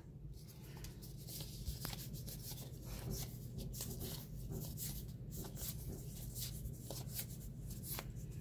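Faint rubbing, rustling and small irregular clicks of hands working at a foil trading-card booster pack and its cards, over a steady low hum.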